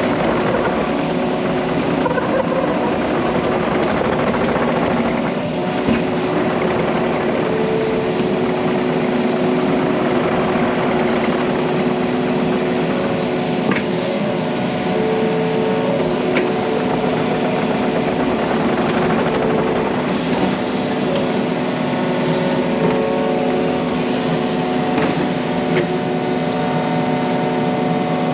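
Yanmar mini excavator's diesel engine running steadily as the machine travels and works its hydraulics, with a few higher tones coming and going.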